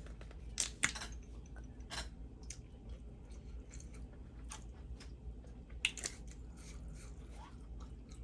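Close-miked mukbang eating sounds over a bowl of spaghetti: scattered wet mouth clicks and smacks, the sharpest under a second in and again about six seconds in.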